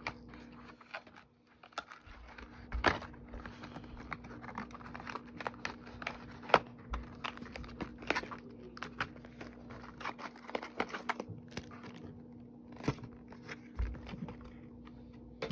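Cardboard trading-card box being opened by hand: scattered crinkling, tearing and tapping of the cardboard and the packaging inside.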